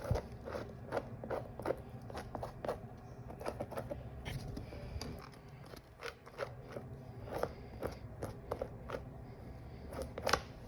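Paintbrush dabbing and tapping on the painting surface, laying on white paint for snow: a string of short, irregular taps and light clicks.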